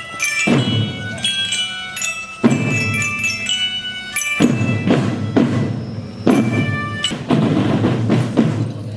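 Background music with drum hits and ringing, bell-like notes.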